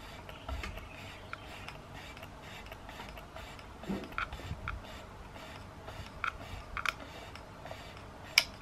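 Film-winding knob of an ALPEN-M 120 roll-film camera turned by hand: a run of light ratchet clicks with a few sharper clicks, the sharpest near the end, as freshly loaded film is advanced from the start mark to frame 1.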